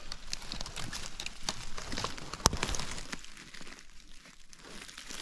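Footsteps crunching through dry forest litter, with irregular crackles and snapping twigs and one sharper snap about halfway through. The footsteps go quieter for a moment near the end.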